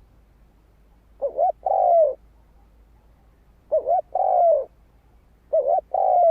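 Spotted dove cooing: three phrases about two seconds apart, each a short coo followed by a longer coo that falls away at the end.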